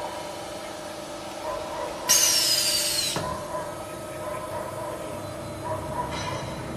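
Plastic pipe belling machine running with a steady mechanical hum. About two seconds in, a loud hiss with a falling whistle lasts about a second and ends in a low thump.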